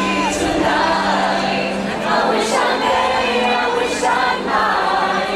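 Choir singing over music.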